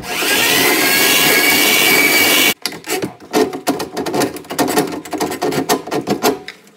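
Handheld power drum auger running for about two and a half seconds, its motor whining as the drum spins, then cutting off suddenly. After that come irregular clicks and scrapes as the steel snake cable is pushed by hand into the drain pipe.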